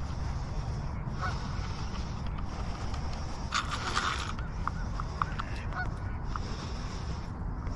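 Fishing reel being wound in stretches while a hooked speckled trout is fought, with a brief louder splash-like burst about three and a half seconds in and a few short ticks after it.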